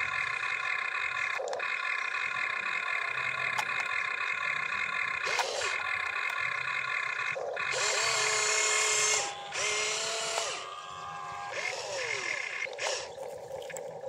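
RC excavator's electric motors whining steadily as the boom, arm and bucket move, the pitch briefly sliding up and down as the moves change. About eight seconds in, a short rush of gritty noise as the bucket scrapes through dirt.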